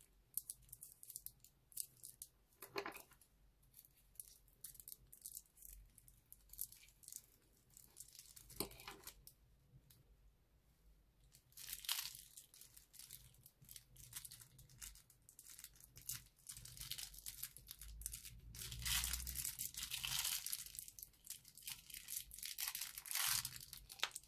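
Plastic piping bag crinkling as it is squeezed, with scattered small clicks of round beads dropping onto a bed of beads in a glass dish. The crackling is busiest about three-quarters of the way through.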